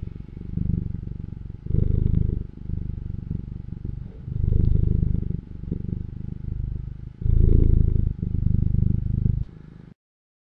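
A domestic cat purring close up: a low rattling rumble that swells and eases in phases every couple of seconds, with each breath. It cuts off suddenly near the end.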